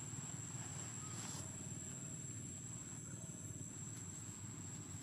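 Steady outdoor background noise: a low rumble under a constant high-pitched whine, with one faint short chirp about a second in.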